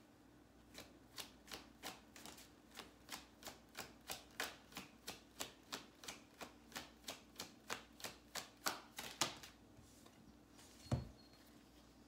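Tarot deck being shuffled by hand: cards slapping together in an even rhythm of about three a second, which stops after about nine seconds. A single louder thump follows near the end.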